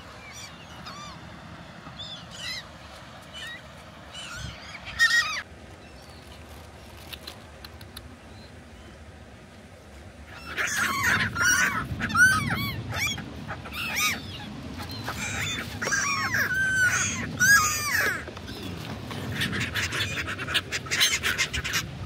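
A flock of gulls calling: a few scattered cries at first, then from about halfway a loud, dense chorus of many overlapping calls over a low rumble.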